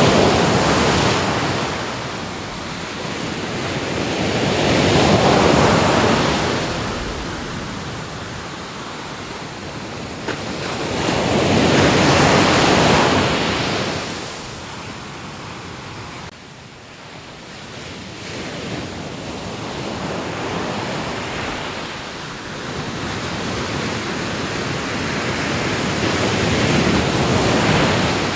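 Ocean waves breaking and washing up the shore, the surf swelling and fading in slow surges several seconds apart. The level drops suddenly about sixteen seconds in, then builds back up.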